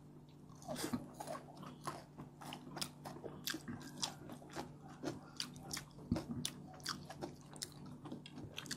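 Close-miked chewing and biting of crispy fried chicken wing momo: irregular crunches and wet mouth clicks, several people eating at once.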